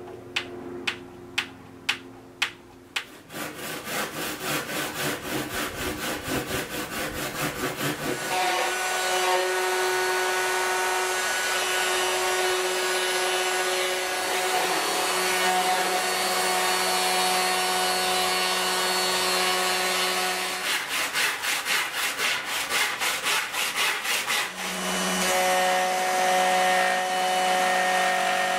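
Carbon fibre sheet being machined: a few sharp clicks, then several seconds of fast, even cutting strokes, then an electric router running at a steady pitch as it cuts the sheet's edge. The fast strokes return briefly, and near the end a router-table bit runs steadily as a laminated carbon fibre plate is fed along it.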